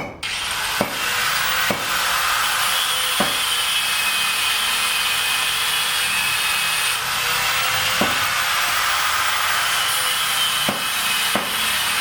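A power tool running steadily with a continuous cutting hiss, starting abruptly, with a few scattered knocks over it.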